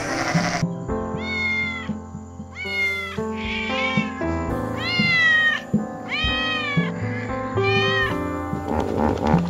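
Domestic cat meowing about six times, each meow rising then falling in pitch, over background music.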